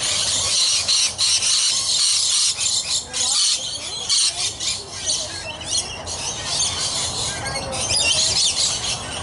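Rainbow lorikeets screeching and chattering, many shrill high calls with quick pitch sweeps overlapping.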